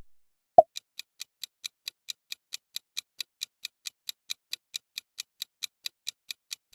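Quiz countdown-timer sound effect: a short pop about half a second in, then steady clock-like ticking, about five ticks a second.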